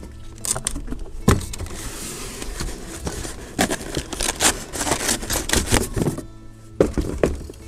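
Cardboard packaging rustling and scraping, with a series of sharp knocks, as a new air strut is lifted out of its box and the cardboard insert is moved.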